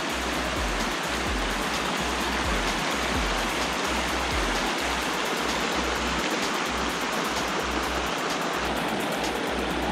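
A small rocky mountain stream rushing over boulders in shallow rapids, a steady rush of water, with background music's low bass notes pulsing underneath.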